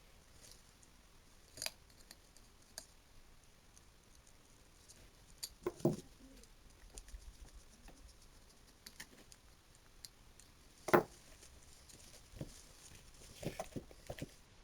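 Scattered small clicks and snips of hand tools on electrical wire, as a cord end is stripped and handled. The sharpest snap comes about eleven seconds in, with a flurry of lighter clicks near the end.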